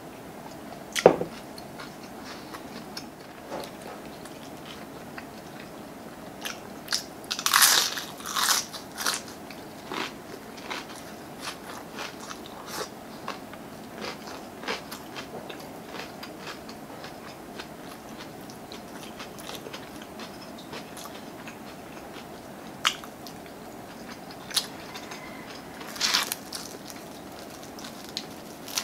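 Close-miked eating: biting into and chewing crispy fried chicken, with loud crunchy crackles around eight seconds in and again near the end, and scattered small smacks and clicks of chewing in between. A single sharp knock about a second in.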